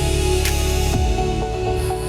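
Electronic dance music with no vocals: sustained synth chords over heavy bass, changing about a second in to a plucked synth melody with lighter bass.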